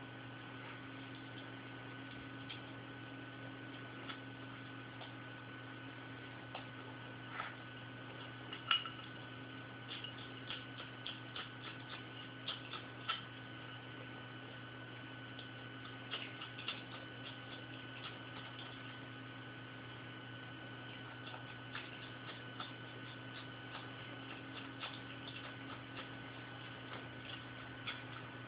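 Striped skunk eating from a ceramic bowl of cucumber and cottage cheese: many small, irregular clicking and smacking chews, bunched into flurries, over a steady background hum.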